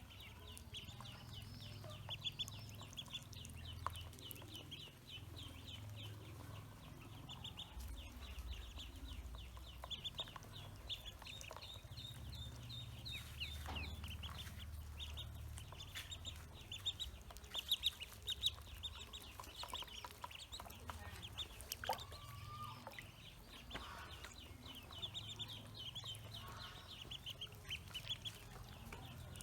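Pekin ducklings peeping: a steady stream of rapid, high peeps, with a few sharp clicks scattered through.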